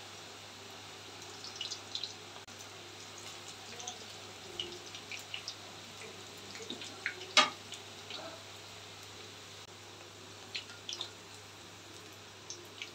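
Cabbage pakoras deep-frying in hot oil in a kadai: a steady sizzle with scattered crackles and pops, and one sharp crack about seven seconds in.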